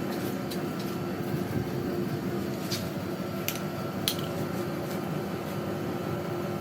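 Factory machinery running with a steady hum, with a few sharp clicks near the middle.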